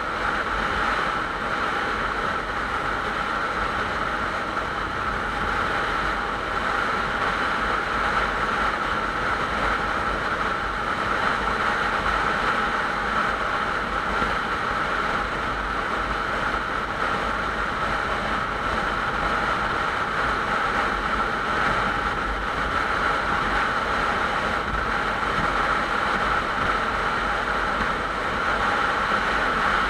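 Motorcycle cruising at a steady highway speed: a constant engine drone under wind rushing past the camera microphone.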